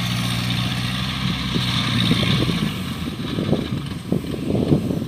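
Engine of a tracked rice-hauling tractor running steadily, fading out about two and a half seconds in; after that, wind buffets the microphone in irregular gusts.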